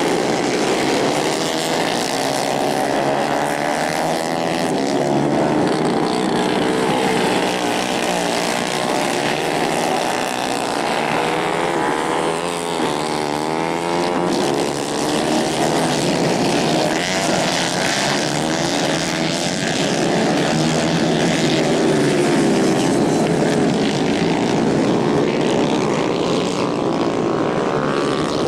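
Several 150 cc racing kart engines running at high revs together, their overlapping buzzing pitches rising and falling as the karts race through the corners.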